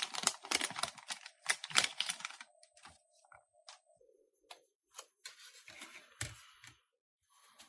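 Light clicking and scratching of small parts and tools being handled during a phone repair: a dense run of clicks for about two and a half seconds, then only a few faint ticks and a brief scrape.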